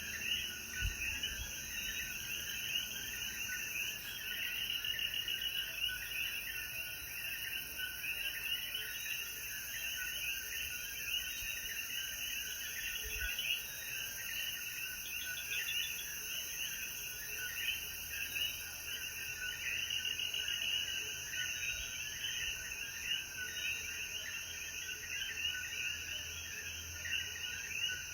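A dense evening chorus of coquí frogs, many calling over one another in short repeated chirps, over a steady high-pitched hiss of insects.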